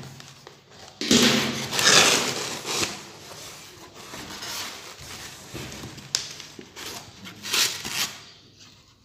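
Cardboard box flaps being pulled open and polystyrene foam packing being handled: scraping and rustling in bursts, loudest in the first few seconds, with another brief burst near the end.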